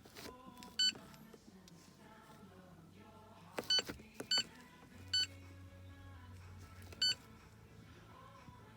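Handheld automotive scan tool beeping as its keys are pressed: about six short, high-pitched electronic beeps at uneven intervals, with faint background music underneath.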